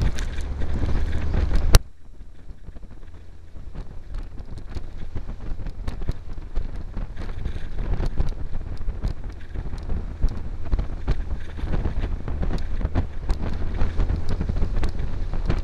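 Open-top buggy on the move: engine and road noise under heavy wind buffeting on the microphone. A sharp click comes about two seconds in, the level drops, then slowly builds again.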